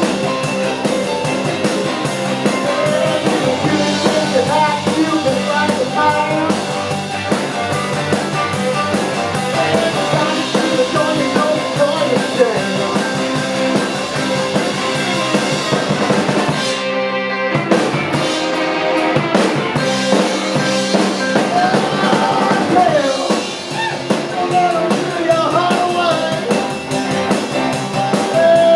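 Live band playing a rock and roll song, with drum kit, bass and lead vocals.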